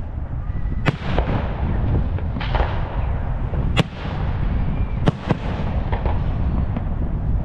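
Aerial firework shells bursting: about five sharp bangs spread across a few seconds, over a continuous low rumble.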